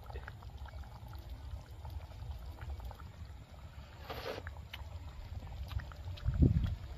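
A short slurp about four seconds in as chicken curry is tasted from the hand, over a steady low rumble, with a low thump near the end.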